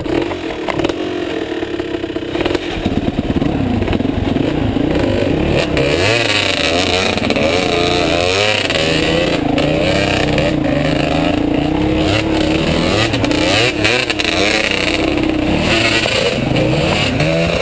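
Dirt bike engine running under throttle, its revs rising and falling continually as it rides a rutted dirt trail, with a few knocks over the bumps.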